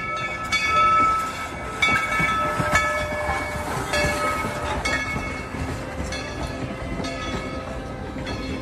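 Dollywood Express No. 70 steam train under way: the locomotive's whistle sounds, strongest over the first few seconds, over the rumble and clatter of the engine and cars, with a few sharp knocks.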